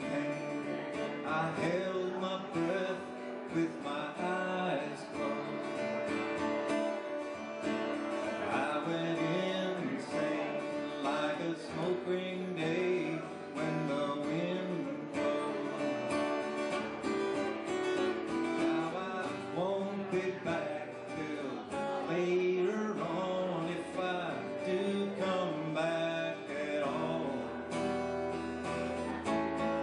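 Acoustic guitar strummed steadily through a song, with a man's voice singing along over it.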